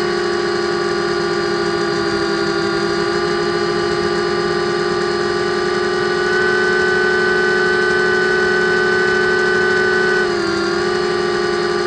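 Blade 200QX quadcopter's brushless motors and propellers whining steadily in flight, heard from a camera mounted on the craft. The pitch steps up slightly about halfway through and dips about ten seconds in.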